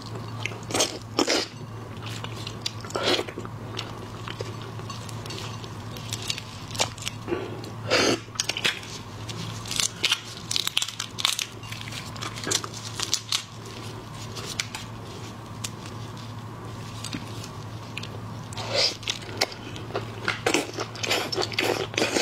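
Close-miked eating of large red prawns: irregular crackling and crunching as the shells are broken and peeled and the meat is bitten and chewed, in clusters with short pauses between. A steady low hum runs underneath.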